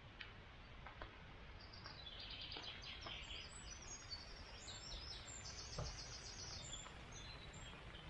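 A songbird singing quick high trilled phrases, starting about a second and a half in and stopping near the end, over a faint steady low background rumble.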